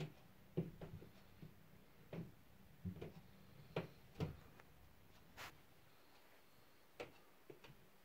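Handling noise from a phone being held and moved while filming: about a dozen soft, irregular clicks and knocks from fingers on the phone, fewer after the first five seconds, over near silence.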